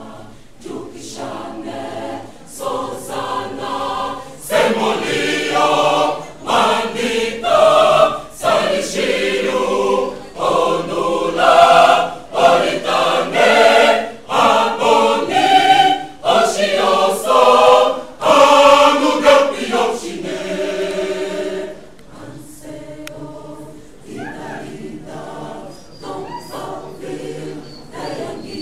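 A choir of men and women singing together in sustained phrases, swelling loud through the middle and falling back soft for the last several seconds.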